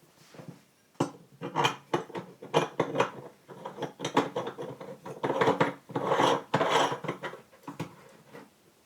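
Dishes and cookware being handled: a run of clinks, knocks and scrapes, some with a short metallic ring, starting about a second in and dying away near the end.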